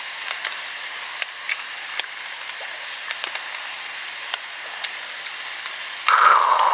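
Rain pattering on a tent: a steady hiss dotted with the sharp ticks of single drops. About six seconds in, a louder rushing noise cuts in.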